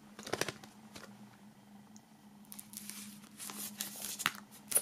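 Plastic shrink-wrap foil being slit with a knife and peeled off a CD's thin cardboard sleeve: faint scratching and crinkling, busier in the second half, with a sharp click near the end. A faint steady hum lies underneath.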